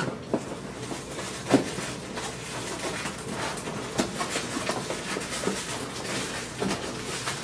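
Unboxing a camera kit: packaging being handled, rustling steadily, with a handful of light knocks, the loudest about a second and a half in.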